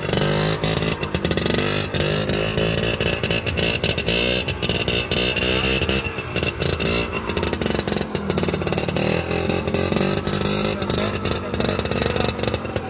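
Vintage Vespa scooter's two-stroke engine running hard through a long wheelie, its pitch rising and falling as the throttle is worked.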